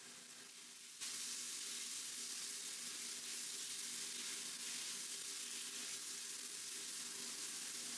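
Food sizzling as it fries in a pan, a steady hiss that jumps suddenly louder about a second in.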